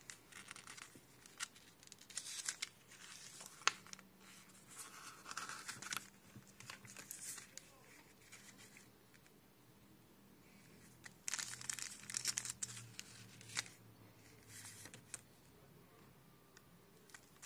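Paper pages of a small stapled instruction booklet being turned and handled: bursts of crisp rustling with sharp flicks, in two clusters with a lull in the middle.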